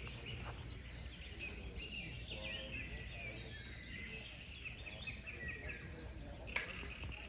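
Several small birds chirping and singing over a steady low background rumble, with one sharp click near the end.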